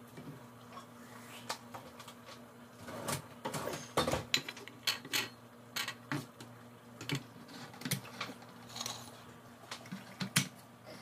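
Irregular clinks and knocks of pots and utensils being handled while cooking, over a steady low hum.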